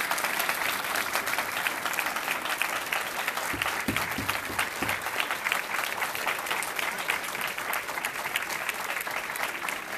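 Audience applauding steadily, many hands clapping, with a few dull knocks a few seconds in.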